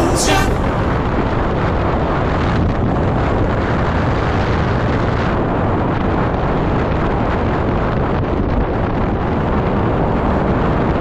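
Steady wind noise buffeting the camera's microphone as a mountain bike rolls fast downhill on an asphalt road, an even rushing with no breaks or sudden events.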